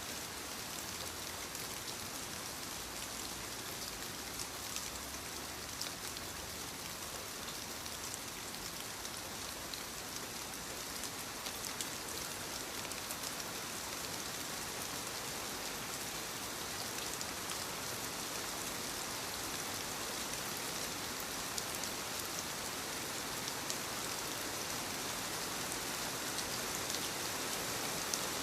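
Steady rainfall, with the hiss of rain and scattered drops ticking close by, growing slightly louder toward the end.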